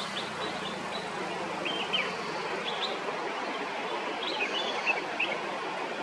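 Steady rushing of a waterfall, with short bird chirps scattered over it and a quick cluster of them near the end.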